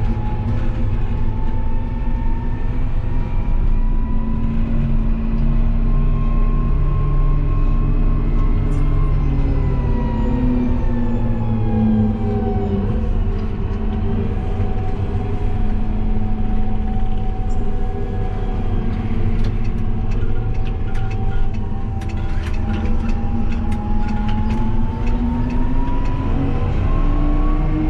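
Fendt 828 Vario tractor driving, heard from inside the cab: its diesel engine and Vario drivetrain run steadily with a pitched whine over a low rumble. The pitch falls as it slows about ten seconds in and climbs again near the end as it picks up speed.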